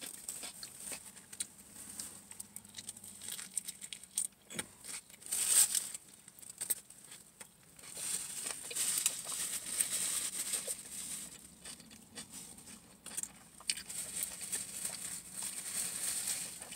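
Close-up eating sounds: chewing a flatbread sandwich, with the paper wrapper crinkling and rustling in irregular spells.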